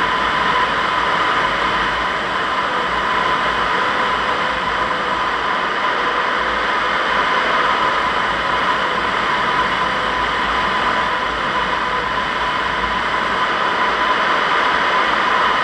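Steady rush of air around the canopy of a Zugvogel 3a glider in flight, with a steady high tone sounding alongside it and a fainter lower tone that wavers and fades out about twelve seconds in.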